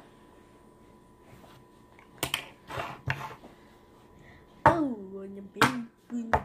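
A few light clicks and taps on the tabletop, then a child's wordless voice sound, falling in pitch and held, twice near the end; the voice is the loudest thing.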